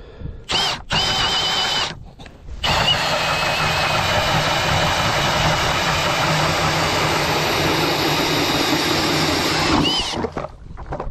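Milwaukee M18 Fuel brushless cordless hammer drill turning an 8-inch Eskimo Pistol Bit ice auger, drilling a test hole through pond ice. A short spin-up whine comes about half a second in, then after a brief pause the auger bites into the ice with a steady grinding whir for about seven seconds, stopping near the end.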